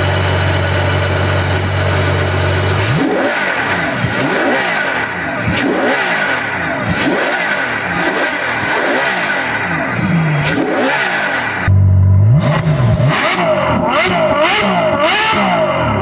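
Ferrari F12 Berlinetta's naturally aspirated 6.3-litre V12 idling steadily, then revved repeatedly in quick blips, its pitch rising and falling with each one. About three-quarters of the way in the sound cuts to a louder take with sharper, faster revs.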